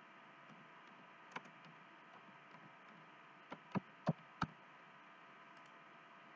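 Clicks of a computer mouse and keyboard: a single faint click about a second and a half in, then four sharper clicks in quick succession around the middle, over a faint steady hum.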